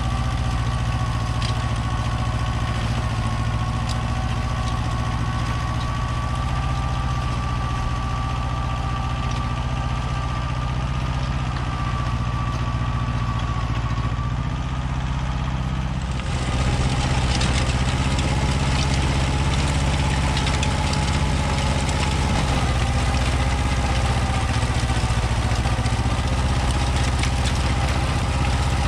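Compact tractor engine running steadily. About 16 s in it grows louder and harsher, as if it has been put under load.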